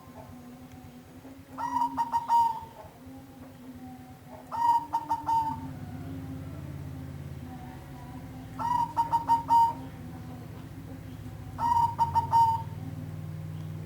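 Zebra dove (perkutut) cooing: four short phrases of quick rolling notes, about three seconds apart, over a low steady hum.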